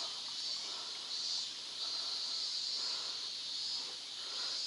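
A chorus of insects, a steady high-pitched shrill that swells and eases slightly.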